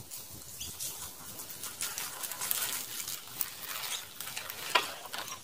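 Mountain bike rolling across a dry lawn: an irregular crackling from the tyres over dry grass and leaves, getting louder as the bike comes close, with one sharper click near the end.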